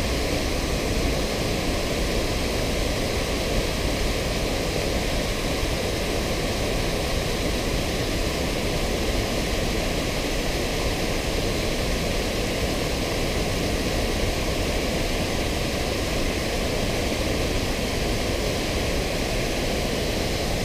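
Steady rush of water pouring over a low concrete weir into the river, an even, unbroken noise.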